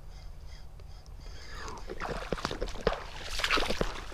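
Footsteps crunching over dry seagrass wrack and debris on a shoreline. They start about halfway in as a string of short, light crunches.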